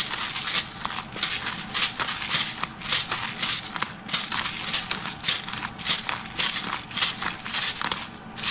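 Hand-twisted pepper mill grinding black peppercorns, a rapid run of crunching, rasping strokes at about three a second.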